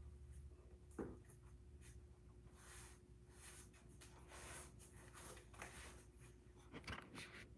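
Faint rustling and rubbing of skin and clothing on a yoga mat as a person shifts position, with a soft knock about a second in. A faint steady hum runs underneath.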